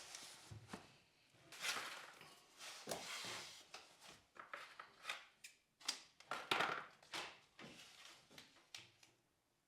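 Irregular light knocks, clicks and scraping from hands working on wooden wardrobe units, with a few longer rustling scrapes among the taps.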